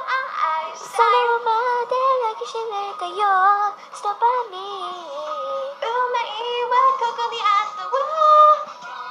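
Young female voices singing a J-pop song in Japanese, with sustained, sliding sung phrases over a backing track.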